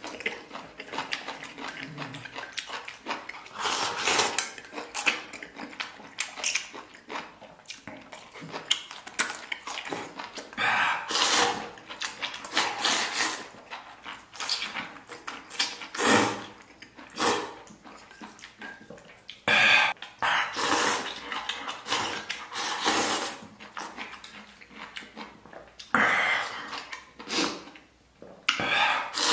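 A person slurping noodles out of a bowl of spicy broth in a long series of loud slurps, each a second or two long, with wet chewing in between.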